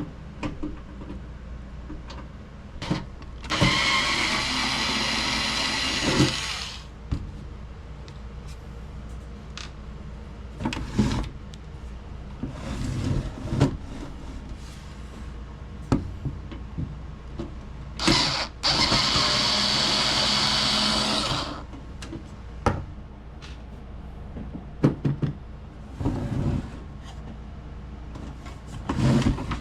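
Power drill backing screws out of a VCR's case, running in two spells of about three seconds each, with short knocks and clicks of handling in between.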